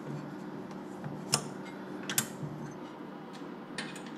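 A few light, sharp clicks of tools and small metal fuel-system parts being handled, the clearest two under a second apart near the middle, over a faint steady low hum.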